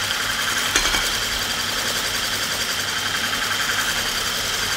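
Hand-held electric mixer with a whisk attachment running steadily at low speed, beating egg whites in a glass bowl as they begin to foam up.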